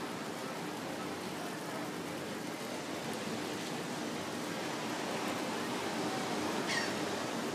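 Steady, even rush of seaside outdoor ambience, surf and distant traffic blended together, with a brief high chirp near the end.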